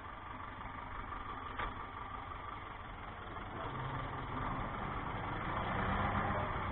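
Ursus C-360 tractor's four-cylinder diesel engine running steadily, heard from inside the cab. The engine is being run in. About halfway through a steadier hum comes in and the engine grows a little louder.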